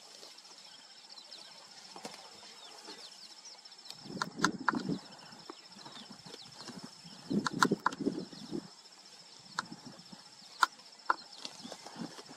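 African elephant kicking and scuffing at dry, dusty ground with its forefoot: two bouts of scraping thuds and sharp clicks, about four seconds in and again around seven to eight seconds, then a couple of single knocks near the end. A steady faint high twittering runs behind.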